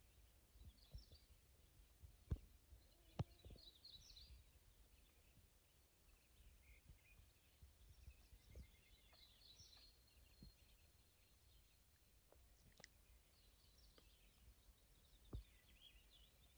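Quiet dawn ambience with faint, scattered songbird chirps and calls, and a couple of soft clicks about two and three seconds in.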